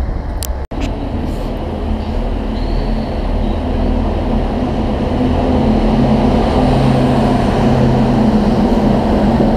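Diesel engine of a yellow on-track maintenance machine passing close by at low speed: a steady engine note with wheel and rail noise, growing louder as it draws level. A brief dropout under a second in.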